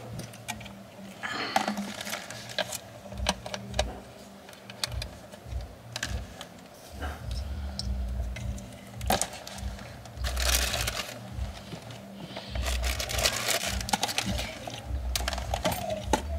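Empty plastic water bottles being handled and stuffed into a plastic bag: irregular crinkling and clicking of thin plastic, with louder rustling bursts in the second half.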